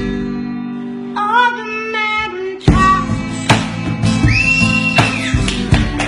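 A song with guitar and a singing voice. For roughly the first two and a half seconds the beat drops out under a held chord and a gliding sung line. The drums then come back in, under one long held note.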